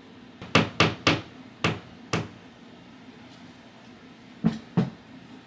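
Sharp knocks of something hard: five in quick, uneven succession, then two more near the end.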